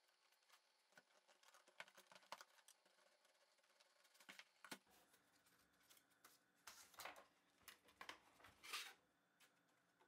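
Faint handling of cardboard packaging: a box lid and a card insert being lifted and slid off, with light taps and clicks and a few brief scrapes of card about two-thirds of the way in and near the end.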